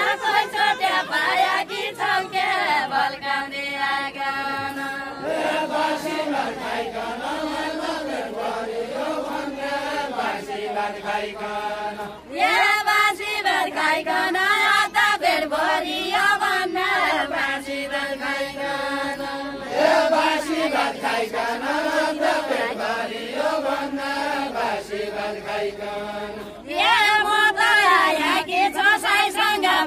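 Group of men's and women's voices singing a deuda folk song in unison, a slow chant-like melody in long repeated phrases. The phrases are taken up in turns, with louder passages starting about twelve seconds in and again near the end.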